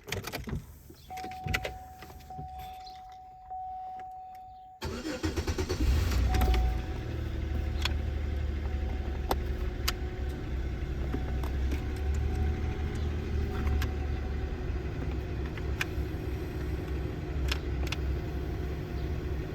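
2002 Chevrolet Malibu's engine cranking and starting about five seconds in, then idling steadily. Before it starts there is a steady tone with a few clicks, and clicks continue over the idle.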